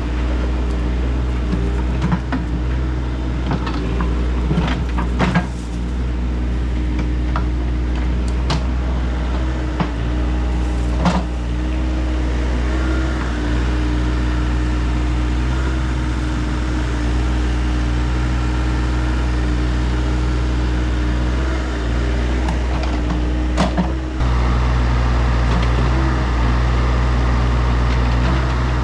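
Excavator's diesel engine running steadily while the machine works dirt, with scattered clanks and knocks from the bucket and linkage. Near the end the engine gets louder and stays that way.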